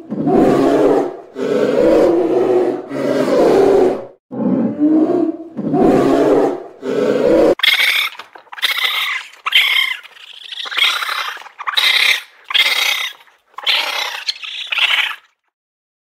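Animal calls: about six low calls of roughly a second each, then, after an abrupt change about halfway, a quicker series of shorter, high-pitched calls from a different animal.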